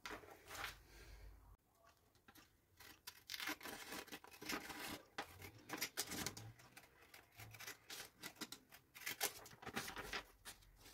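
Scissors cutting through a sheet of paper: a run of faint, uneven snips with paper rustling between them.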